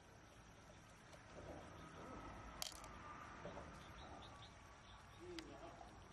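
Near silence with a faint outdoor background, broken by a sharp click about halfway through and a fainter one near the end, from handling the large mussel shells.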